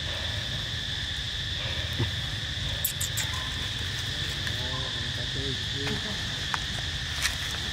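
Steady high-pitched drone of insects, with a few sharp clicks and some brief faint pitched calls about halfway through.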